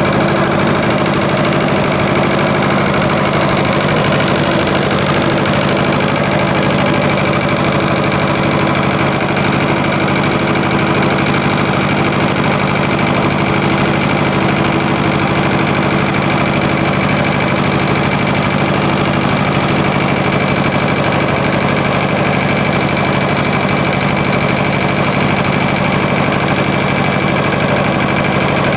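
Small tractor's engine running at a steady speed as the tractor drives along, holding a constant pitch throughout.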